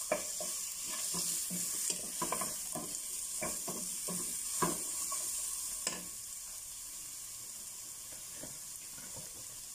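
Garlic, bell pepper and carrots sizzling in oil in a pot, with a wooden spatula scraping and knocking against the pot as they are stirred. The stirring stops about six seconds in, leaving the steady sizzle.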